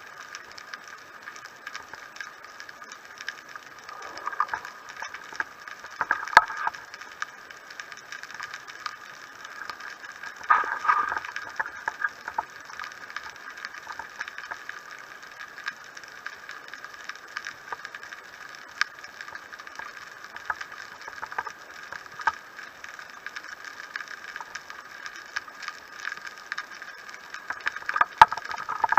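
Underwater ambience during a spearfishing dive: a steady hum with constant faint clicking and crackling, and a few louder rustling bursts about four, six and eleven seconds in.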